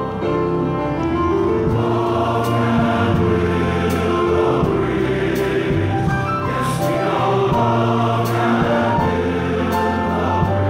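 Large men's chorus singing slow, held chords in harmony.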